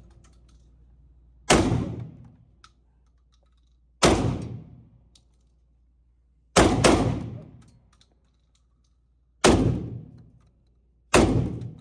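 A 12-gauge shotgun fired repeatedly, one blast about every two and a half seconds, each shot dying away over about a second.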